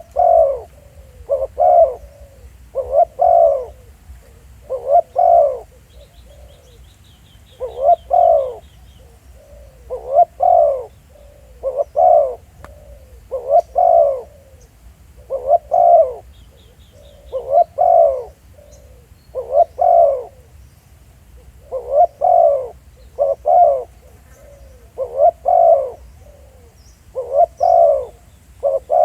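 Spotted dove cooing over and over: short coos in little groups, repeating steadily every second or two. A small bird gives a brief high trill twice.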